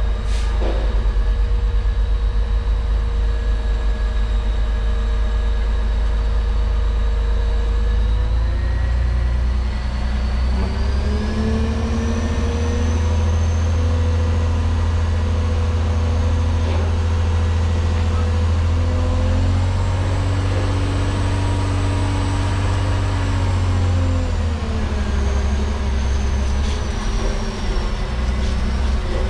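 Heavy diesel truck engine under way, heard from the cab: a steady low drone whose pitch climbs about ten seconds in, holds, then drops back near the end, with a faint high whine rising and falling with it.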